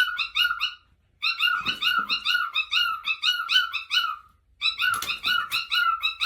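Parrot calling in fast runs of short, repeated high notes, about six a second, in three bouts with brief pauses between them.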